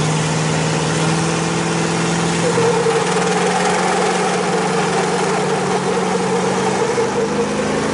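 Ford and Chevy pickup truck engines running hard under heavy load while pulling against each other in a truck tug of war, a steady high-revving drone with a dense hiss over it. The pitch creeps up slightly in the second half.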